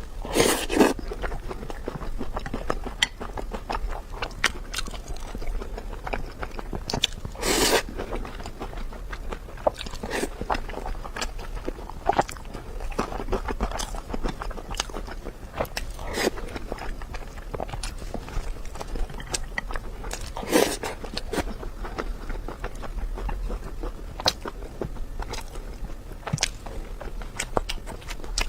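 Close-miked mukbang eating sounds: a person biting and chewing, with many small crunching clicks and three louder, longer mouthfuls spread through.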